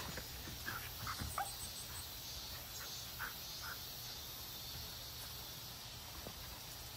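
Faint outdoor ambience: a steady high insect hiss over a low hum, with a few brief, faint chirps in the first four seconds.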